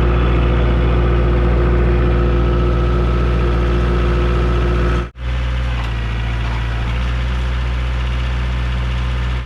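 Heavy machine engine, most likely a tractor carrying a log, running steadily with a deep, even note. The sound drops out for a moment about five seconds in, then carries on the same.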